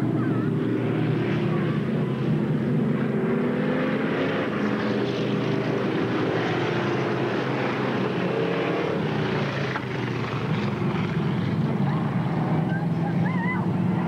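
Several dirt-track stock car engines running at race speed, a steady engine drone whose pitches drift up and down as the cars pass around the oval.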